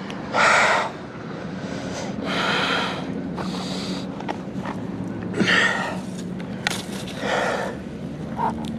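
A man breathing hard in pain after a fall, with repeated heavy gasping breaths and groans every second or two. A steady low hum runs underneath.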